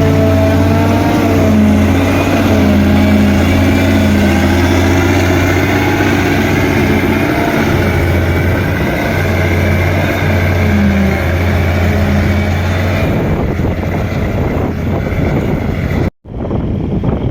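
Self-propelled forage harvester running under load while chopping grass, a steady low engine drone with higher whines that waver in pitch. The drone changes about thirteen seconds in, and the sound cuts out for an instant near the end.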